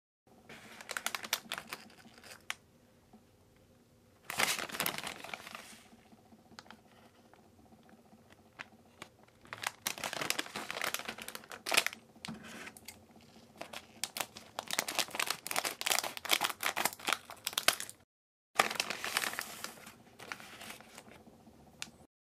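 Shiny plastic wrapper of a Coris Hora Dekita choco-banana candy kit crinkling in the hands and being torn open, in irregular bursts of crackle with short pauses between them.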